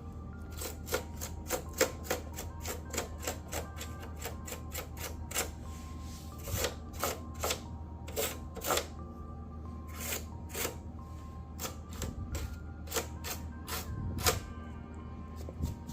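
A toothbrush's bristles scrubbing and flicking dust off the plastic around a PlayStation 5's fan: an irregular run of sharp, scratchy clicks, several a second, with short pauses.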